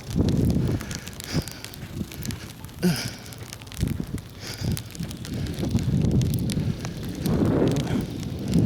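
Footsteps crunching in snow, irregular crackly crunches, with wind buffeting the microphone in low rumbling gusts, strongest at the start and over the last few seconds.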